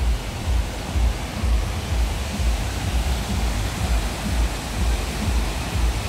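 Steady rush of a waterfall and a fast, rocky river, with a heavy low rumble that swells and fades underneath.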